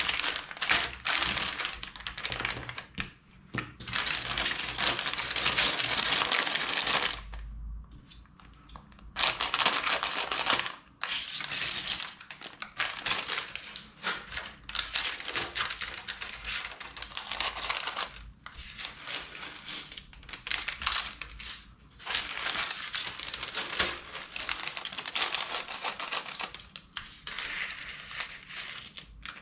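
Clear plastic bags of Lego Technic parts crinkling as they are handled and emptied, in stretches of several seconds with short pauses between. Small plastic pieces rattle as they are poured out onto the table.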